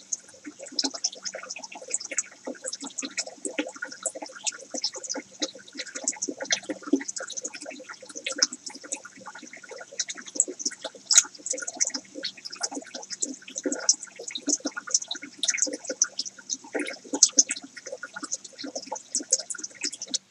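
Filtered water from a DIY pond filter splashing and bubbling into a goldfish stock tank: a continuous, irregular crackle of small splashes, with a faint steady hum underneath.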